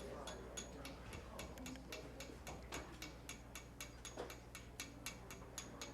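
Faint, even ticking, about four ticks a second, over a low steady hum.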